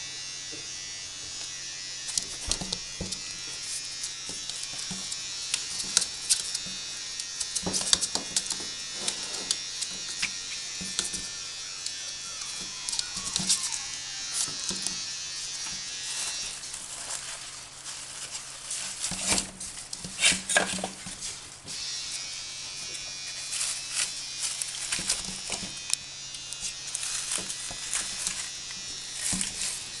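A steady low electrical buzz and hiss, with many scattered light clicks and taps starting about two seconds in: a small puppy moving about on the floor, its claws clicking.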